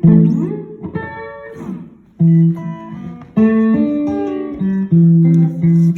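Handmade guitar with a hand-wound pickup being played: plucked notes and chords ring out, a few of them sliding in pitch. The guitar is in need of tuning.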